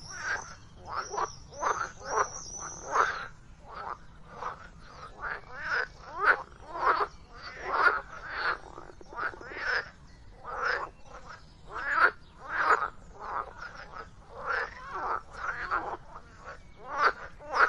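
Frogs croaking: a steady run of short calls, about one or two a second.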